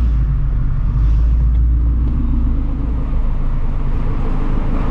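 Straight-piped Shelby GT350's 5.2-litre flat-plane-crank V8 with long-tube headers, heard from inside the car, running steadily at low speed in heavy traffic: a deep, even exhaust rumble with no revving.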